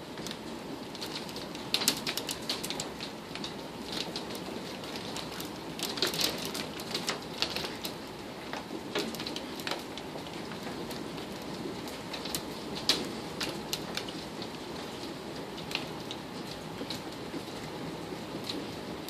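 Hail mixed with rain pelting down: a steady rushing hiss with scattered sharp clicks of hailstones striking hard surfaces, the loudest clicks about two seconds in and again near thirteen seconds.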